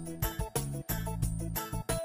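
Background music with a steady beat and melodic notes.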